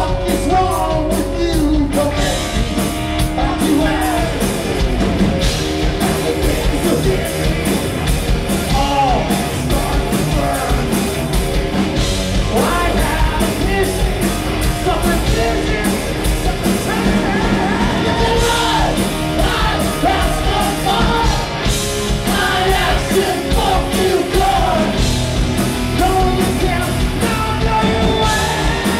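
Live rock band playing: a lead singer over electric guitar, bass guitar and a drum kit, at a steady high level.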